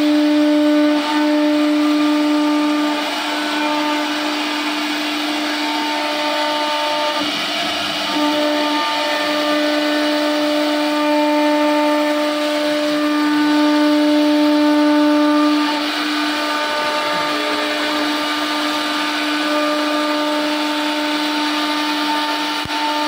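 CNC router spindle running at a steady high whine as its bit carves a relief design into a wooden plank, with the rasp of the cutting mixed in. The whine and loudness swell and dip as the bit moves through the wood, with brief breaks now and then.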